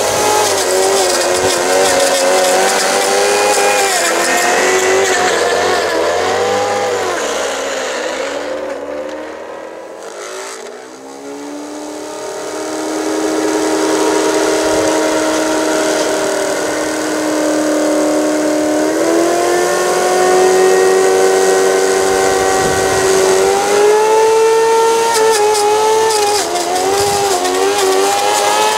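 Small electric motors of a garden-scale model rotary snowplough train whining as the plough cuts through snow. The pitch wavers up and down, fades to a dip about ten seconds in, then returns steadier and steps up in pitch.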